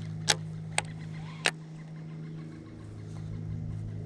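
Three sharp clicks within the first second and a half as a baitcasting reel is handled for a cast, over a steady low hum.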